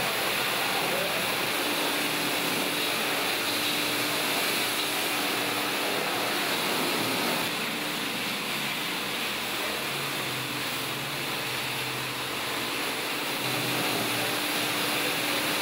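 Steady rushing hiss of water hoses spraying cattle being washed, over a steady hum.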